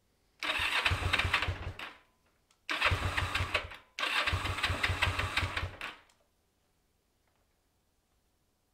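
Kawasaki EN450's 454 cc parallel twin cranked on the electric starter in three bursts of rapid chugging, about two seconds, one second and two seconds long, without catching. The hard starting is taken by the owner to be too little fuel or air leaking past intake boots he had not tightened.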